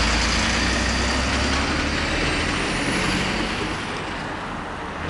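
Heavy dump truck driving past on the road, its engine and tyres loud at first and fading over the next few seconds.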